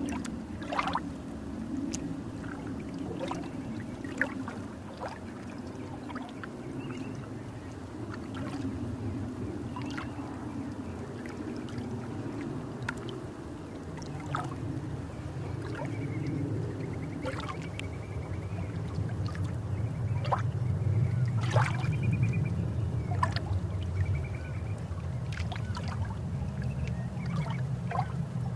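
Water of the Kodiveri dam's weir and falls flowing, a steady low rush that grows louder in the second half, with scattered small splashes and clicks.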